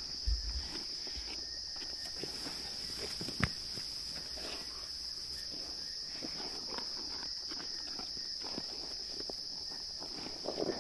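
Steady high insect chirring at night, with scattered rustles and knocks over it, a low thud just after the start and a single sharp crack about three and a half seconds in.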